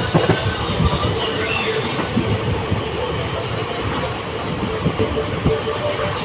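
ICF passenger coaches running on the rails, heard from the doorway of the moving train: a steady rumble of wheels on track with irregular clacks.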